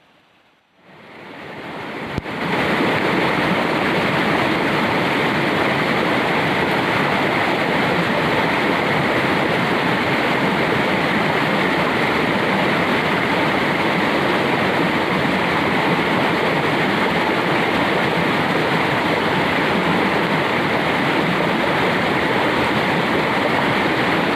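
Steady rushing of flowing water, fading in over the first couple of seconds and then holding even.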